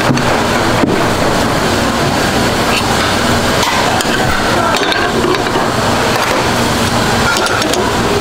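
Steady noise of a busy ramen stall: gas burners running under aluminium pots, with background chatter and a few light clinks of metal tongs and a spatula against the pots.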